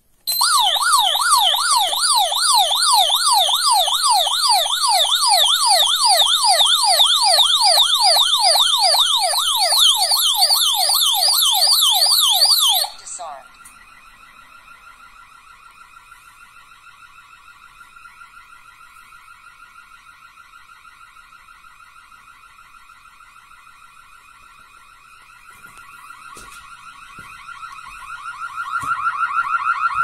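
STANIOT home-security alarm panel's built-in siren going off: a loud, fast up-and-down warble, about three sweeps a second, that stops abruptly about thirteen seconds in. It is followed by a much quieter steady tone that grows louder near the end.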